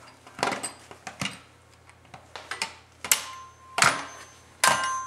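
A baby banging and handling a toy xylophone by hand: irregular clattering knocks, several leaving a short ringing note.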